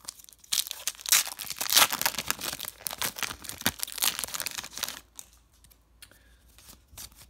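Foil wrapper of a Topps trading-card pack being torn open and crinkled: a dense crackle lasting about four and a half seconds, then quieter handling with a few small clicks as the cards come out.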